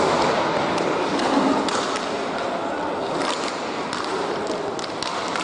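Hockey play in a rink: skates scraping and sticks and puck clacking, many sharp irregular knocks over a steady hiss, with echo from a large hall.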